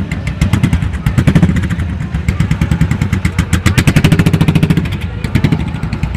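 Motorcycle engine running with a rapid, pulsing exhaust beat, the revs swelling about a second in and again around four seconds.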